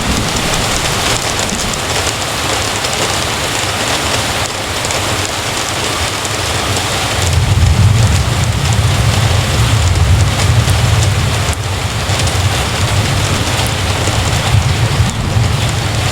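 Heavy rain falling steadily. About halfway through, a low rumble sets in underneath and continues.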